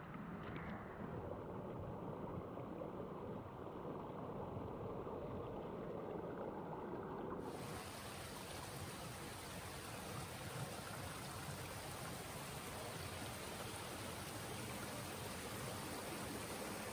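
Steady rush of the River Trevillet's running water. About seven seconds in it turns abruptly brighter and hissier.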